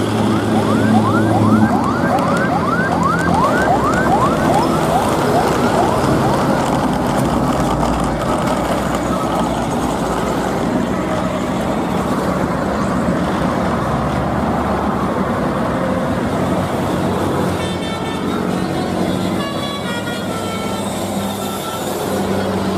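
Vehicle sound effects: held horn tones and a rapid run of rising, siren-like whoops in the first few seconds, over continuous vehicle noise, with broken horn-like tones near the end.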